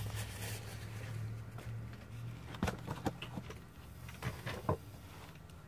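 A person moving into place and sitting down on rubble and a board beside a concrete block wall: scattered scuffs and knocks in two short clusters, about two and a half seconds in and again about four and a half seconds in, over a steady low hum.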